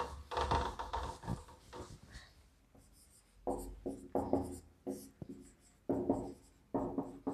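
Whiteboard marker squeaking across the board in a series of short strokes as a word is written. Before that, about the first second, the board is wiped by hand with a brief rubbing.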